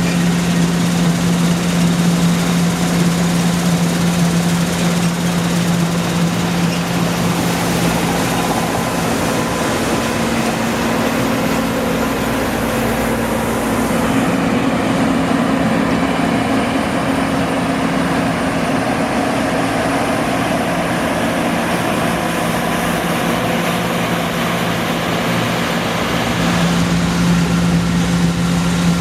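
Heavy diesel engine of harvest farm machinery running steadily. Its note steps up about halfway through and drops back to the first pitch near the end.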